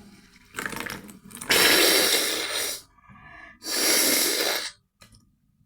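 A person blowing her nose hard to clear out saline rinse and mucus from her blocked sinuses: three forceful blows, the last two long and loud.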